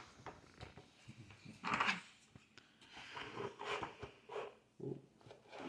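Faint, scattered scraping and rustling of hands and small toy tools working kinetic sand, with a few brief louder rustles.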